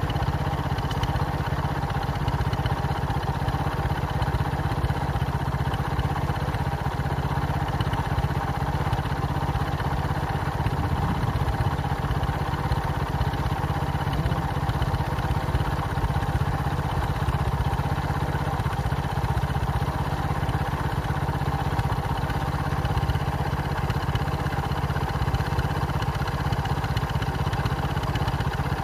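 A vehicle engine idling steadily, an even low running note that holds unchanged throughout.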